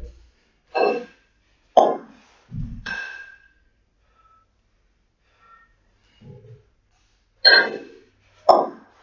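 A kettlebell lifter's forceful breathing during a long-cycle set with two 24 kg kettlebells: three short, sharp breaths about a second apart, a pause of about four seconds, then two more. A brief click comes with two of the breaths.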